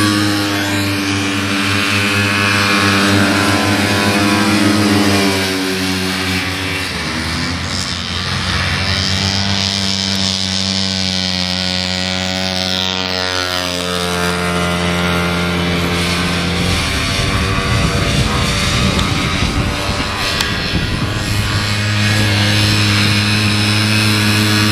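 Several vintage two-stroke snowmobiles racing, engines running hard, their pitch rising and falling as the sleds pass and power out of the turns.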